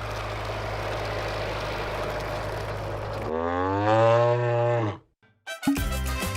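A steady rumbling noise with a low hum, then one long pitched call that rises and falls, a half-second of silence, and music starting about a second before the end.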